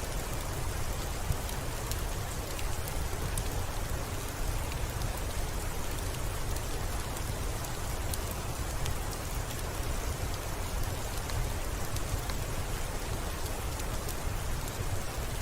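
Steady soft rain, with a fireplace crackling over it in scattered sharp ticks.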